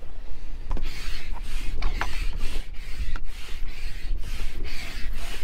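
Hand pump inflating an inflatable stand-up paddleboard: quick, even push-pull strokes, each a rasping whoosh of air, about two to three a second, with wind rumbling on the microphone underneath.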